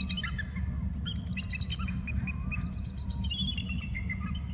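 Bald eagle calling: three runs of high, piping, chattering notes, over a steady low rumble.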